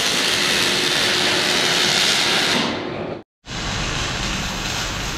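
MIG welder arc, a steady crackling hiss, fading out about three seconds in; after a brief silence a second stretch of welding starts.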